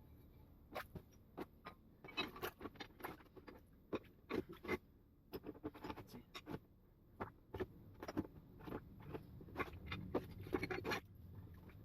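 Faint, irregular clicks and scrapes from the rusty vise's metal parts being handled.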